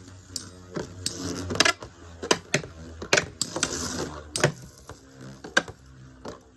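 Two Metal Fight Beyblade tops, one of them MF-L Aquario 90 MF, spinning and colliding in a stadium, with irregular sharp metal clicks of repeated hits, several a second, over a light whirring.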